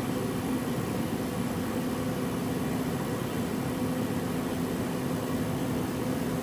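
A steady mechanical hum: a constant low tone over an even hiss, unchanging throughout.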